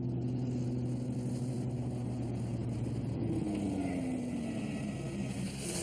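Light aircraft engine and propeller running steadily, its note dropping in pitch about halfway through as the throttle comes back on the approach to land. A hiss swells near the end.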